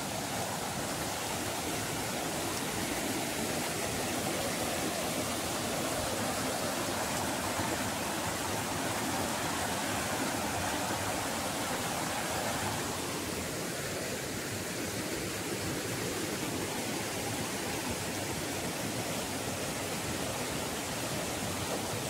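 A rocky forest stream rushing steadily over rock slabs and small cascades.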